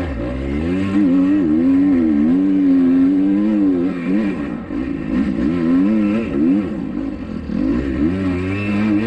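2021 Kawasaki KX250X dirt bike's 250 cc four-stroke single-cylinder engine running hard under a rider, its pitch climbing and falling again and again as the throttle is worked and gears change through corners and straights.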